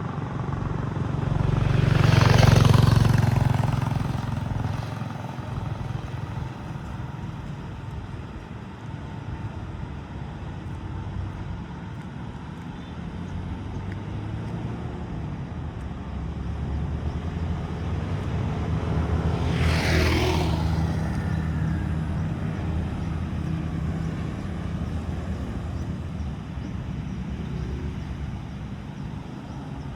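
Road traffic: two motor vehicles pass close by, one peaking about two seconds in and another about twenty seconds in, each swelling and fading over a steady low engine sound.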